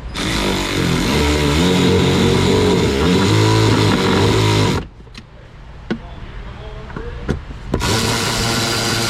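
Cordless power tool running bolts into a glove box cabinet, its motor pitch wavering as it goes: one long run of about five seconds, a pause with a few sharp clicks, then it starts again near the end.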